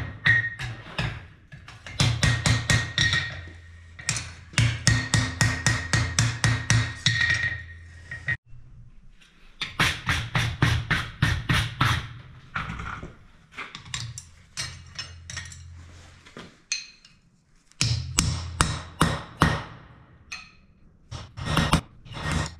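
Runs of rapid hammer blows on metal at an anvil, with the anvil ringing. The blows come in bursts of a few seconds, several strikes a second, broken by short pauses.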